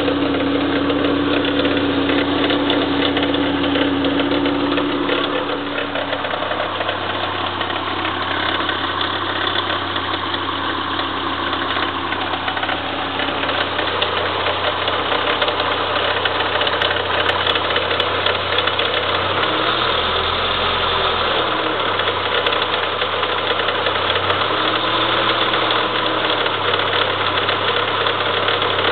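Engine running steadily with a noise the owner takes to be abnormal. A higher steady tone drops away a few seconds in, and there are two short low swells later on.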